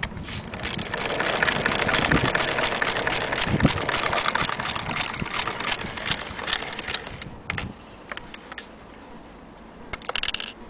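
Antique Bradbury hand-crank sewing machine running, its mechanism making a fast, even clatter for about seven seconds before stopping, followed by a few single clicks and a short burst of running with a high whine near the end.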